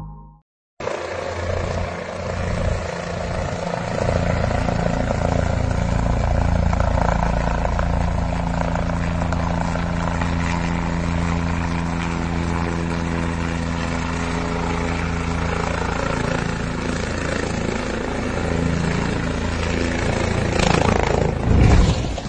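Helicopter rotor and engine running as it comes in low to land: a loud, steady noise with several steady humming tones, starting about a second in. Near the end it swells to a brief louder burst as the helicopter crashes on landing, then cuts off.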